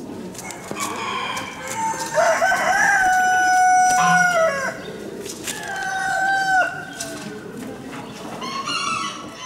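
Roosters crowing among other fowl: one long crow held about two seconds starting a couple of seconds in, then a shorter crow around six seconds, over the clucking of other birds.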